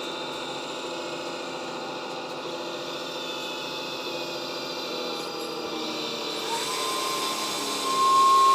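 Hydraulic oil pumps of a 1/14-scale RC hydraulic excavator running with a steady whine, shifting in pitch as the valves are worked. About two-thirds of the way through, a higher whine rises and grows louder, as the pumps come under more load.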